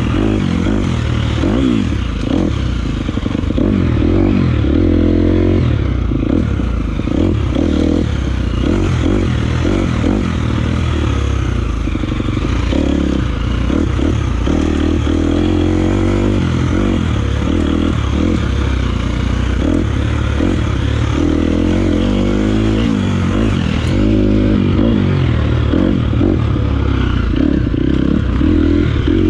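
250cc four-stroke single-cylinder dirt bike engine, heard from the rider's chest, revving up and down with the throttle the whole time, with some clatter from the bike.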